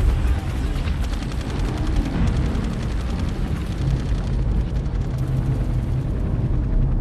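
Battle sound effects on the soundtrack: rapid gunfire over a dense low rumble. The gunfire thins out about four and a half seconds in.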